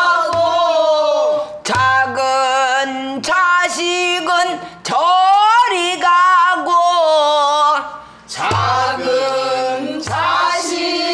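Pansori singing: a woman's voice holding long, wavering notes, with a short break near the end, accompanied by her own buk barrel drum struck with a stick, giving a few low thumps and sharp clicks between phrases.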